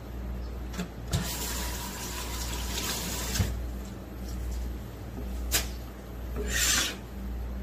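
Water running for about two seconds, over a steady low hum. A sharp click follows about five and a half seconds in, then a short splash or scrape near the end.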